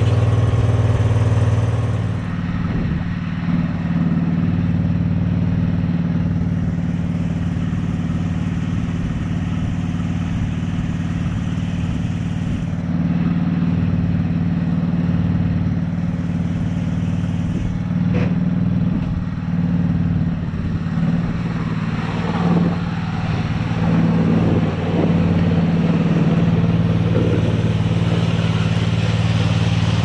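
Craftsman GT6000 garden tractor's engine running steadily as the tractor drives and pushes snow with its front plow blade, the engine a little quieter for a stretch after about two seconds and louder again near the end.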